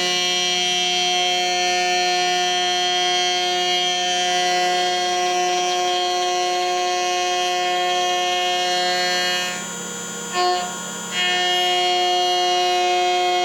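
CNC router spindle running with a steady high whine as its slot drill profile-cuts Tasmanian oak. The sound drops briefly about ten seconds in, with one short blip, then returns.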